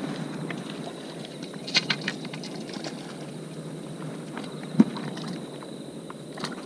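Handling noise from a float-fishing rod being struck at night: a cluster of sharp clicks about two seconds in and one loud thump near five seconds, over a steady low outdoor rustle.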